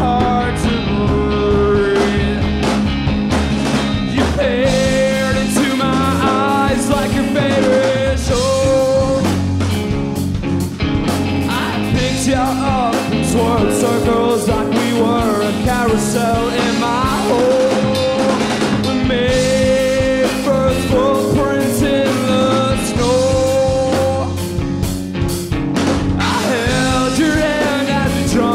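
Live rock band playing an instrumental passage: hollow-body electric guitar, electric bass and a Pearl drum kit, with a melody line of sliding, bending notes over a steady beat.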